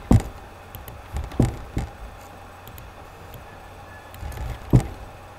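A few short, dull knocks and taps: one right at the start, two close together about a second and a half in, and the loudest near the end, over faint steady background noise.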